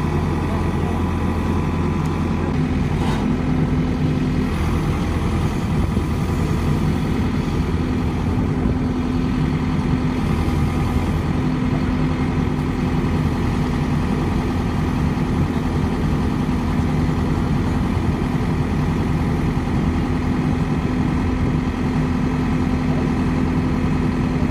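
JCB 3DX backhoe loader's diesel engine running steadily at an even speed.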